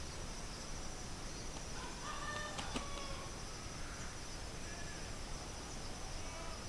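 Outdoor rural ambience: a steady high insect drone, like crickets, with a few short, faint bird calls about two to three seconds in and again near the end, and one sharp click in the middle.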